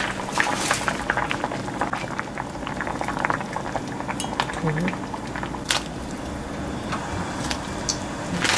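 Broth boiling hard in a cast-iron pot, a steady bubbling and popping, with a few sharp clinks of metal tongs against the pot in the second half.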